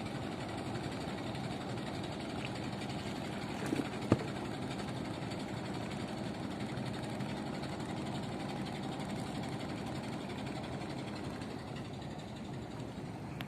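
A motor engine running steadily at idle, an even rumble with no change in speed. A single sharp click sounds about four seconds in.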